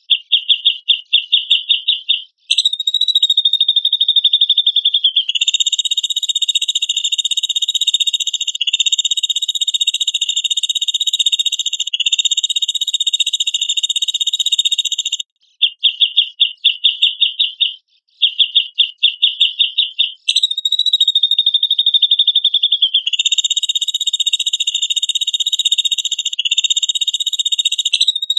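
Cucak jenggot (grey-cheeked bulbul) song played as a training recording: long phrases of a rapid, buzzy trill at a steady high pitch, broken every few seconds by short stuttering runs of separate notes and brief pauses.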